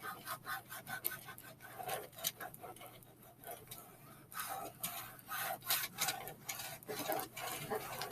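Plastic card scraping back and forth over vinyl transfer tape on a wooden board: a run of quick, clicky rubbing strokes that let up a few seconds in, then start again.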